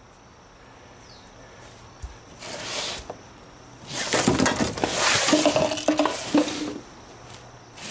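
Flexible urethane concrete-stamp mats being handled on a board: a short scrape near three seconds in, then a longer, louder stretch of rubbery sliding and knocking with a few brief squeaks from about four to six and a half seconds in.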